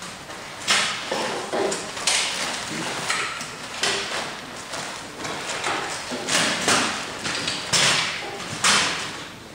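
Props being handled at a folding table: a cloth tablecloth and paper or fabric flapped and rustled, with knocks and thuds on the tabletop. About a dozen short, sharp bursts come at an uneven pace.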